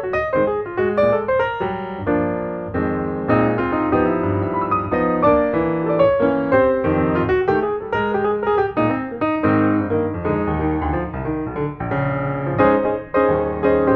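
Background music led by piano, a continuous run of quick melodic notes.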